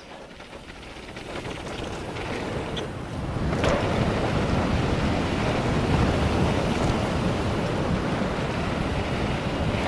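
Wind rushing over the microphone and tyres rolling on dirt as a mountain bike picks up speed downhill, growing louder over the first few seconds and then steady, with a single knock about three and a half seconds in.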